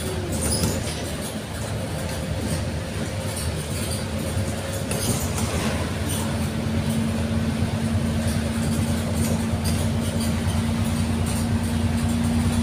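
Running noise inside a moving tram: a steady low rumble, with a steady motor hum coming in about halfway through.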